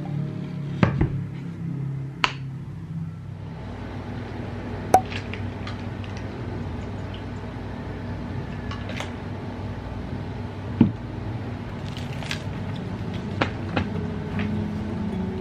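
Desk handling sounds over a steady room hum: a spoon clinking in a drinking glass and paper pages being turned, heard as scattered sharp clicks and knocks. Soft background music fades out in the first few seconds.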